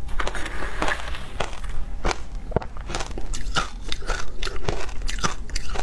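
Hard ice being bitten and crunched in the mouth close to a clip-on microphone: a quick irregular series of sharp crunches, a few each second. A metal spoon scraping and scooping frozen ice in a plastic box.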